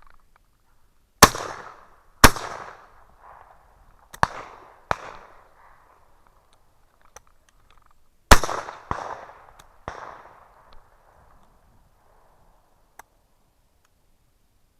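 12-gauge shotgun shots at flying ducks, with each report trailing off in an echo. Two loud, close shots come about a second apart, then two fainter shots, then another loud shot followed by two fainter ones.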